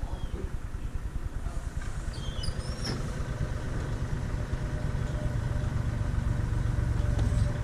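An engine running at a steady speed with a low pulsing, growing louder and steadier from about three seconds in, with a few faint high chirps around two to three seconds in.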